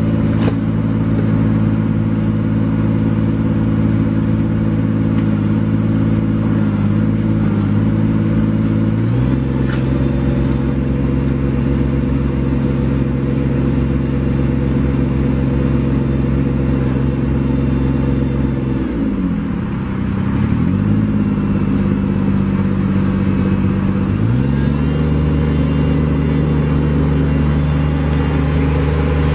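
Kubota BX25D compact tractor's three-cylinder diesel engine running steadily. Its speed steps up about nine seconds in, sags briefly near the middle, then picks up again.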